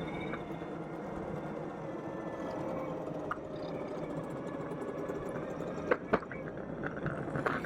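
Dual-motor electric longboard riding, with its wheels rolling on pavement as a steady rumble and a faint motor whine. A few sharp clicks or knocks come about six seconds in and near the end.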